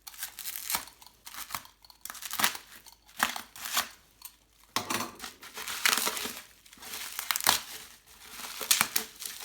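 Packaging being unwrapped and pulled apart by hand: irregular crinkling and tearing that comes in bursts.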